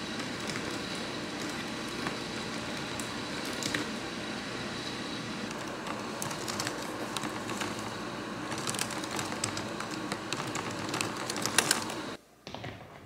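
Typing on a computer keyboard: irregular key clicks over a steady background hiss. The sound cuts off suddenly near the end.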